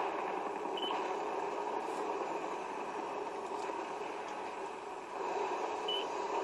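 Film soundtrack heard over theatre speakers: a steady dense rumble of sound effects that cuts in suddenly, with two short high beeps, one about a second in and one near the end.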